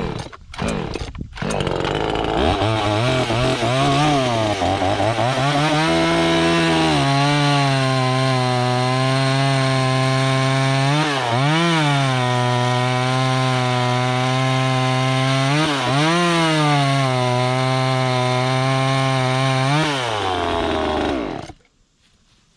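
A Neotech 25cc two-stroke chainsaw revs up and runs at high speed, cutting through a 4–5 inch log. Its pitch dips briefly twice, and it stops suddenly near the end.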